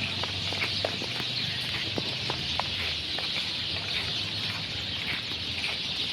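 Birds calling: many short, sharp chirps scattered over a steady high-pitched chorus.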